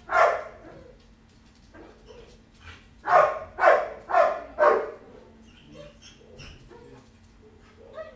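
A dog barking: one bark at the start, then a run of four quick barks about half a second apart a few seconds later.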